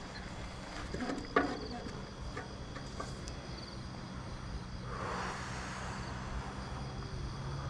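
Insects, crickets or similar, chirring steadily in faint pulsing trills over a steady low hum. A couple of sharp clicks come about a second in, and a short rush of noise around five seconds in.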